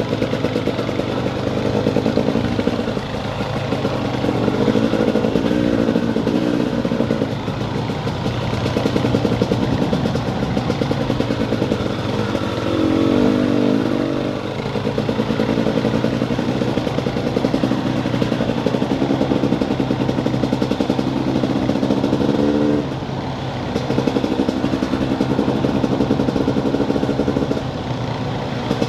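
Off-road vehicle engine running under constantly changing throttle on a rough dirt trail, its pitch rising and falling, with the revs dropping off briefly several times.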